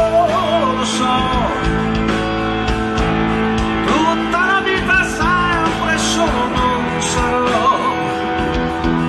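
Live rock band playing: a male lead voice sings held, wavering notes over electric guitars, bass, keyboard and drums with regular cymbal strokes.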